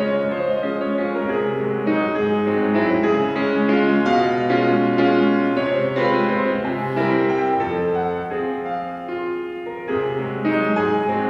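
Solo acoustic piano playing a classical piece in held chords and notes.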